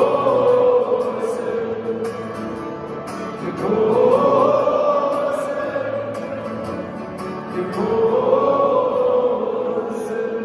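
Large stadium crowd of football fans singing together in long, drawn-out notes over music, swelling about four seconds in and again near the end.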